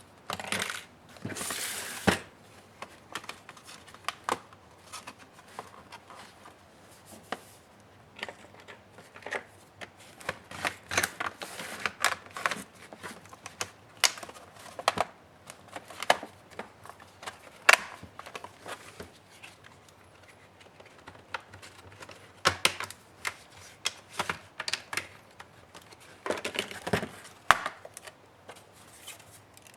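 Irregular clicks, taps and short scrapes of hand tools and plastic laptop parts being handled as an HP ProBook 430 G6 is taken apart. A longer rustling scrape comes about a second in and again near the end.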